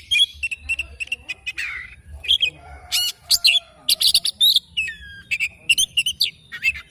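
Oriental magpie-robin (kacer) singing a fast, varied song of short whistles, chirps and clicks, some notes sliding in pitch.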